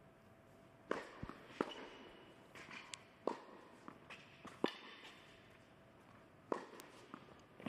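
Tennis ball being struck back and forth by rackets in a rally on an indoor court: about five sharp hits spaced one to two seconds apart, with softer sounds between them.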